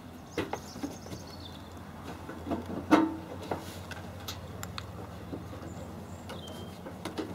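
Scattered light knocks and clicks of hands handling a car's loosened front wing panel, the sharpest about three seconds in, over a low steady hum.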